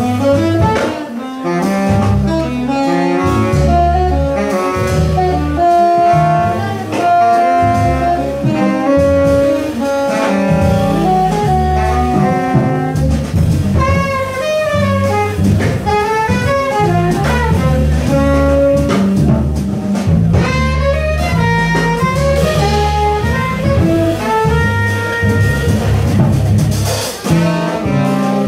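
Live small-group jazz: two saxophones playing melodic lines over piano, double bass and drum kit.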